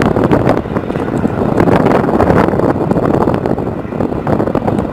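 HH-60 Pave Hawk helicopter flying past low, its rotor and twin turboshaft engines making a loud, steady noise, with wind buffeting the microphone.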